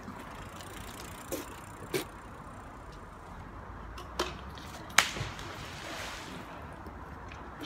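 A magnet-fishing magnet on its rope hits the river with a sharp smack and splash about five seconds in, the splash fading over a second or so. A few lighter sharp clicks come before it.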